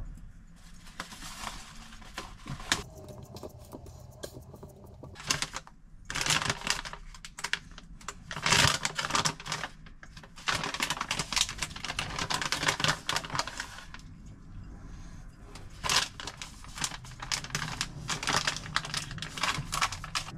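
Kitchen clatter of a spoon against a pan and bowl: bursts of rapid clicking and scraping with short pauses in between.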